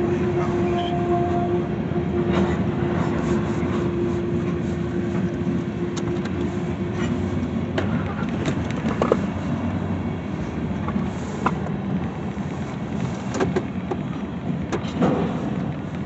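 The last freight cars of a long freight train rolling past, steel wheels running on the rails with scattered sharp clicks and knocks. A steady whine sounds through the first half and fades out about halfway.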